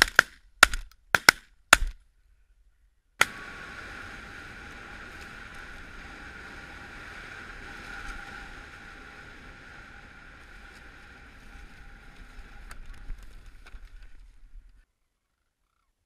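A rapid volley of shotgun shots, about five in under two seconds, from several hunters firing at cranes. After a short silence, a steady hiss with a faint steady hum runs on for about eleven seconds and then cuts off.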